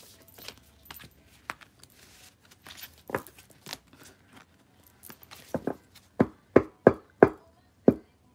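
A tarot deck being handled and shuffled on a table. Soft card rustling and sliding comes first, then a run of sharp card snaps or taps from the second half on, a few each second.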